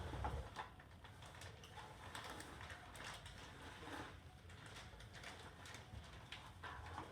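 Quiet room with faint scattered clicks and light knocks, and faint short calls from pet parrots.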